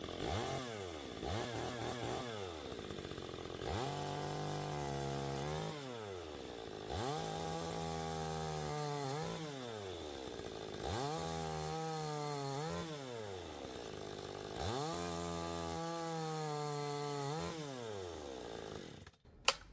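Parker chainsaw cutting through wood, its engine revving up and down several times and holding a steady lower note through each cut. It cuts through the wood easily. Near the end the engine sound drops away, followed by one sharp knock.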